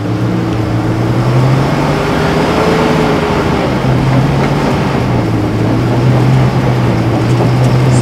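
Stock Nissan Patrol's engine working hard under heavy load as it climbs a steep rocky hill: a steady, loud running note that rises a little and settles, over the scrabble of tyres on loose rock and dirt. Straining but short of power for the climb.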